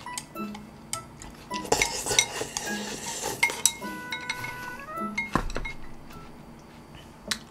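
Ceramic bowl and chopsticks clinking and knocking as the bowl is handled, set down and eaten from, with a busier, noisier spell of handling about two to three and a half seconds in and a dull thump about five and a half seconds in.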